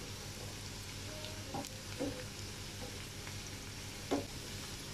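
Chopped onions sizzling in hot oil in a frying pan as they are sautéed, with a wooden spatula stirring them and a few scrapes and knocks of the spatula against the pan, the loudest about four seconds in.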